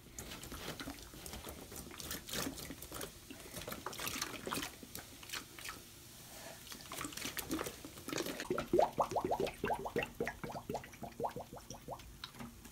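Baking soda and vinegar fizzing and crackling inside a plastic bottle as the gas inflates a balloon over its neck. In the second half comes a quick run of short rising rubbery squeaks, several a second, from hands on the balloon.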